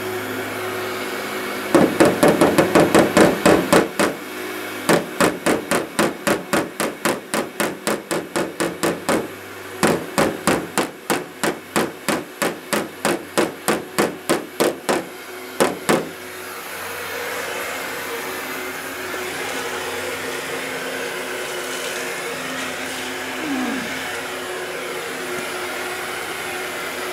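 Body hammer tapping out a dent in an aluminum car hood: rapid light strikes, about three to six a second, in three runs with short pauses, stopping about sixteen seconds in. A heat gun blows steadily underneath and is left running alone after the tapping stops.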